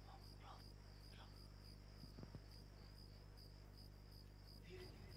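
Faint crickets chirping in a steady run of evenly spaced high pulses, over near silence.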